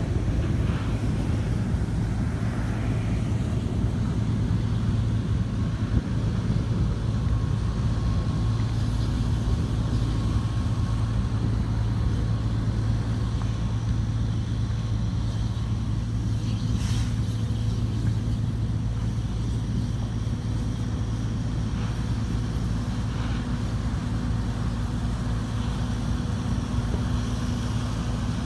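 A vehicle engine running with a steady low hum.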